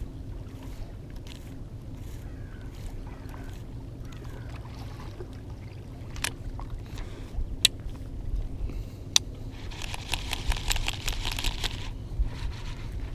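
Low steady rumble of wind and water at a rocky shoreline, with a few sharp clicks and, about ten seconds in, roughly two seconds of rapid ticking from a baitcasting reel being handled.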